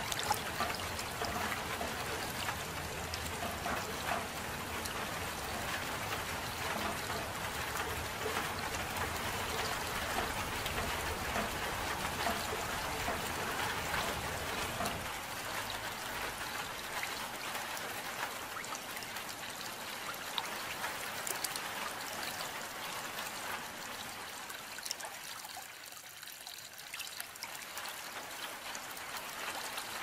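Gentle rain falling steadily, with a trickle of running water. The deeper part of the sound thins out about halfway through, and it eases briefly a few seconds before the end.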